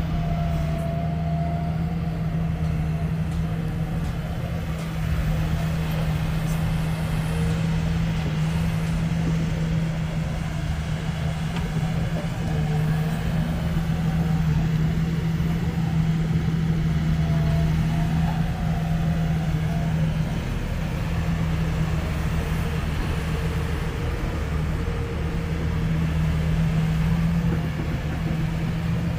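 Diesel engine of an SDLG E7150F wheel excavator running steadily as the machine digs in a sand pile, a low, even drone. It grows a little louder for a few seconds around the middle and again near the end.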